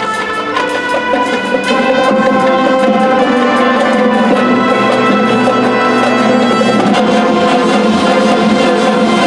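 Marching show band playing, brass holding full sustained chords. The band gets louder about two seconds in.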